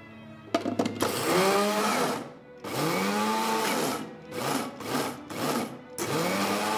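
Small electric mini chopper pulsed with its push-button lid, blending raspberries into a coulis. After a couple of clicks, the motor whirs up in two longer bursts, then three short pulses, then runs again near the end, its pitch rising each time it starts.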